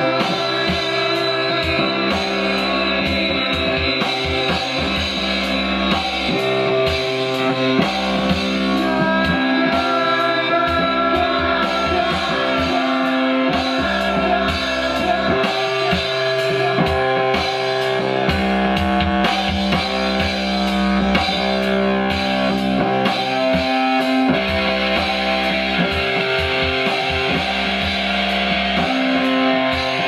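Live experimental electronic music played on a keyboard and electronic gear: dense layers of held tones and chords that shift every few seconds, with low bass notes coming and going.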